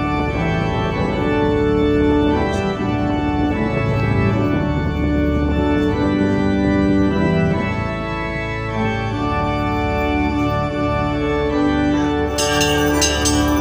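Organ music playing long held chords that change every second or so. Near the end a quick, bright ticking comes in on top.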